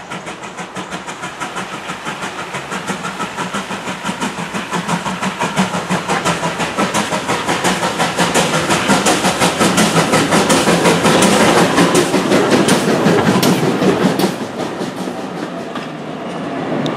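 Steam locomotive hauling a passenger train, its exhaust chuffing in an even, regular beat that grows steadily louder as it draws near, then eases off about three-quarters of the way through.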